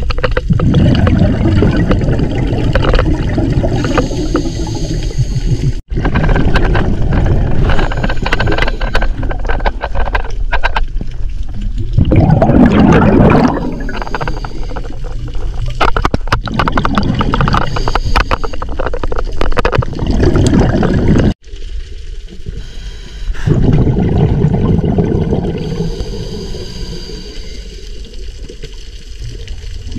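Scuba diving sounds underwater: a regulator's breaths and exhaled bubbles gurgling in loud surges every few seconds. The sound drops out abruptly twice.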